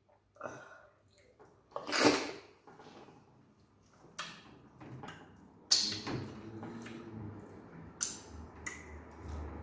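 Close-miked eating sounds: fingers squishing through slippery okra soup and Nigerian starch, with wet mouth noises. There are about five separate short sounds, the loudest about two seconds in and another sharp one near six seconds.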